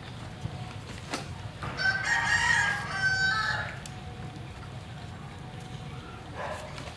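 A rooster crowing once, a single call of about two seconds in the middle. A single sharp knock comes about a second in.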